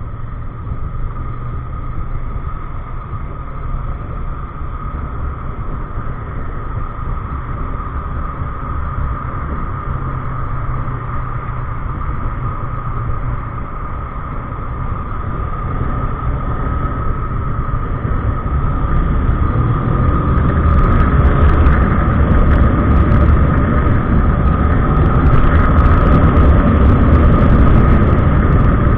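Kawasaki ER-6n's parallel-twin engine running on the road, with a steady low rumble that grows louder from about halfway through.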